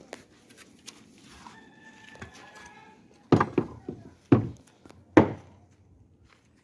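A few loud, sharp knocks in quick succession past the middle, each dying away briefly, like blows on wood or formwork.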